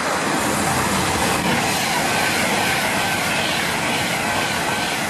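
Avanti West Coast Class 390 Pendolino electric train passing at speed close by: a steady rush of wheels on rail and air, with a faint high whine through most of it.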